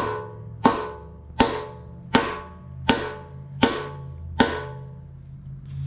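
A hammer striking steel, driving a bushing in: seven ringing metallic blows at an even pace, about one every three-quarters of a second, stopping about four and a half seconds in.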